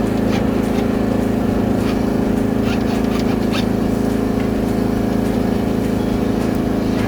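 Engine of a high-pressure drain jetting machine running steadily at constant speed, with a few faint short clicks over it.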